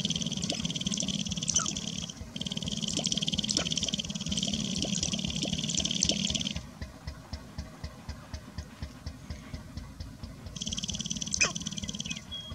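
Sharp-tailed grouse dancing on a lek: the males' rapid foot-stamping and rattling tail feathers make a fast buzzing rattle with a low thrum, in long bursts. A pause of about four seconds in the middle leaves only a slow series of separate clicks, and a short, sharp falling call sounds near the end.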